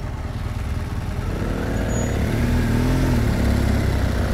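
2016 BMW R1200 GS Adventure's boxer-twin engine idling, then pulling away from a stop a little over a second in, its note rising and falling as it accelerates and grows louder.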